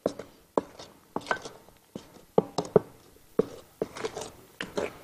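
A wooden spoon knocking and scraping against glass and stainless steel mixing bowls as flour batter is turned out and folded. The knocks are short and irregular, about two or three a second, and some ring briefly.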